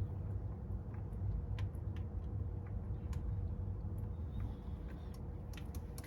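A few water drops falling from a cut copper water line into a container, heard as faint irregular ticks over a low, steady rumble with a faint hum.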